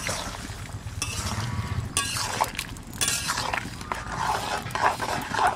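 Metal spatula stirring and scraping through curry in an aluminium kadai, clinking against the pan a few times, with the curry bubbling.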